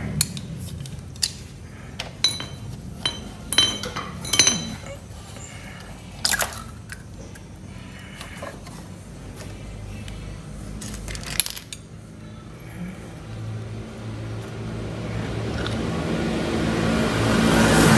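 Sharp metal clinks of hand tools and bolts, several in quick succession in the first few seconds and one more about halfway, while the cam chain tensioner is unbolted from a motorcycle engine.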